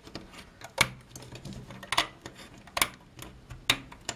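Plastic hook and rubber bands clicking and tapping against the plastic pegs of a Rainbow Loom while bands are hooked and pulled. There are four sharp clicks about a second apart, with light ticks in between.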